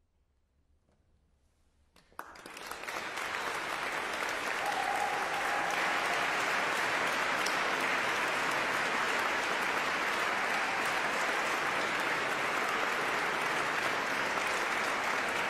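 About two seconds of near silence, then an audience breaks into applause that swells within a second or two and holds steady.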